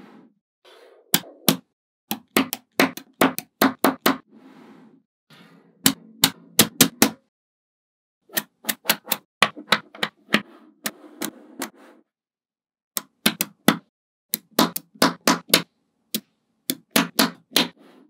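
Small neodymium magnetic balls snapping together with sharp clicks, in quick clusters of several clicks, with the softer rattle of balls rolling and shifting between them. The sound stops dead twice, briefly.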